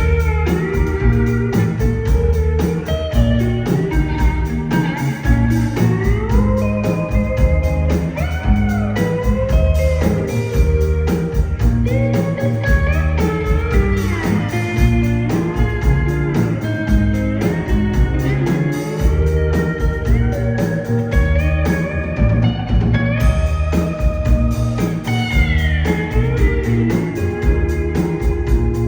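Live rock band playing an instrumental break: a lead electric guitar solo with notes that bend and glide, over a steady drum and bass groove.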